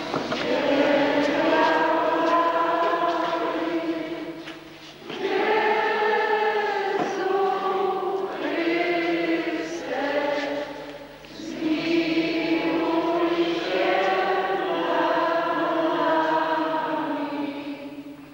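Congregation singing a hymn in a church, in three long sung phrases with short breaks about 5 and 11 seconds in, fading out near the end.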